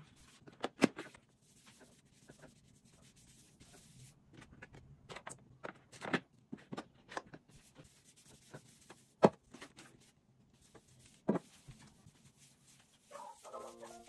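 Hand wiping a tiled kitchen countertop with a soft rubbing, broken by scattered clicks and knocks as a glass and a plastic spray bottle are picked up and set down on the tile. Soft piano music starts about a second before the end.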